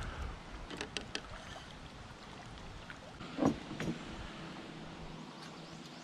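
Light clicks, knocks and rattles of fishing gear and a landing net being handled aboard a kayak as a small fish is netted, with a short grunt-like vocal sound about three and a half seconds in.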